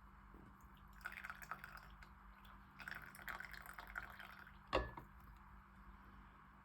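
Faint rustling and crinkling of packaging being handled, in two short stretches, then a single sharp knock a little before five seconds in.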